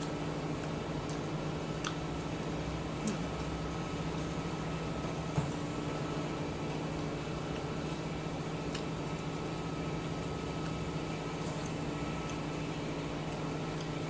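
Chopsticks clicking faintly now and then against a bowl as noodles are stirred and picked up, with one sharper knock about five seconds in, over a steady low electrical hum.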